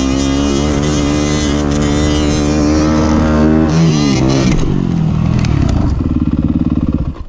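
Dirt bike engine running at high revs close to the microphone, its note holding steady and then falling in pitch about four seconds in. Lower, choppier running follows, and the sound drops away sharply at the very end.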